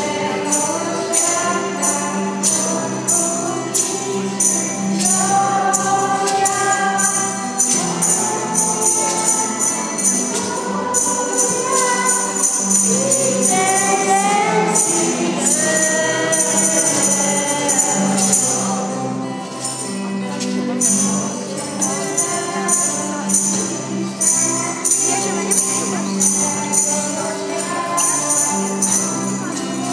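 A small group of children and adults singing a Polish Christmas carol into microphones, with jingling percussion keeping a steady beat throughout.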